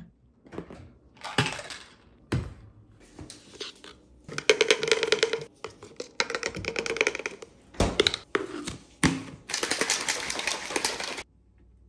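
A plastic cup clicking as a scoop works powder into it, then a shaker bottle shaken hard for nearly two seconds with a fast rattle that stops suddenly near the end.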